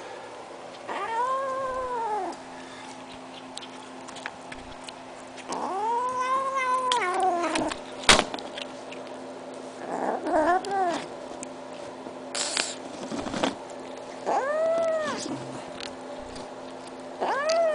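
A small kitten giving long, drawn-out yowls while it eats meat, five of them, each rising and then falling in pitch. A sharp click comes about eight seconds in.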